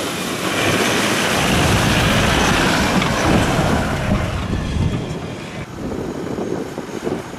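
Off-road 4x4s driving through deep snow: a Toyota Hilux pickup passes close by, its engine and tyres in the snow loud and dense. The noise drops after about five and a half seconds.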